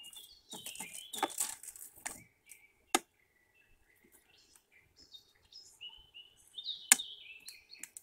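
Great spotted woodpecker foraging in a wooden tray of peanuts: scratchy rustling in the first two seconds and two sharp knocks of its bill, about three seconds in and near the end, the second the louder. Small birds chirp on and off throughout.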